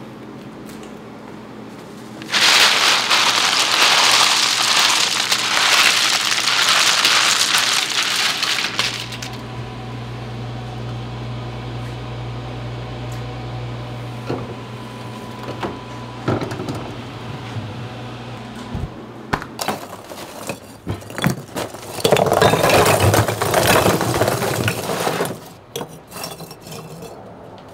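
Restaurant kitchen work: dishes and utensils clinking, with two loud spells of rushing hiss, one about six seconds long near the start and one about three seconds long near the end, and a low steady hum between them.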